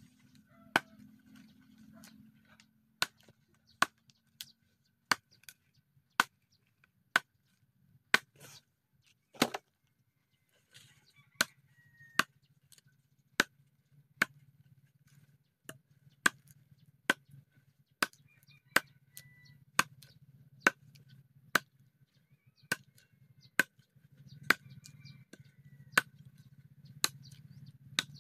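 Bolo knife chopping into the trunk of a small standing tree: a long series of sharp, dry knocks, about one to two strokes a second, with a brief pause about ten seconds in.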